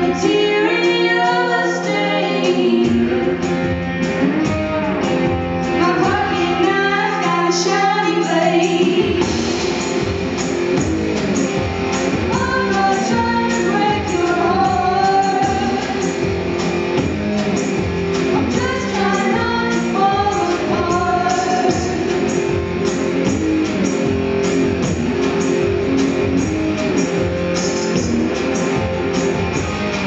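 Live band music with two women singing: the voices at first over a held low note, then a steady drum beat comes in about nine seconds in and carries on under the singing and plucked strings.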